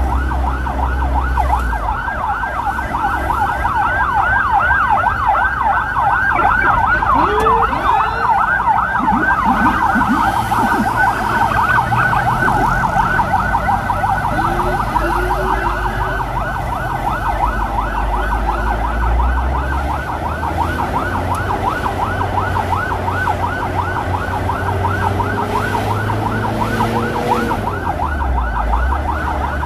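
Electronic emergency siren sounding a fast warble, its pitch sweeping up and down several times a second without a break. It sits over the low rumble of a motorcycle engine and wind. A few short lower tones from other vehicles cut in about a third of the way through and again near the end.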